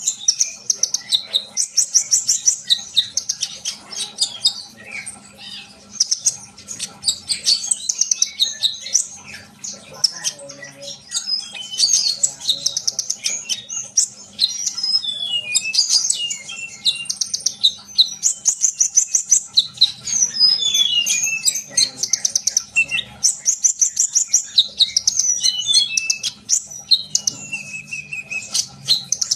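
Olive-backed sunbird (kolibri ninja) singing in full, lively song: fast, high trills and sharp twittering chirps, phrase after phrase with only short breaks.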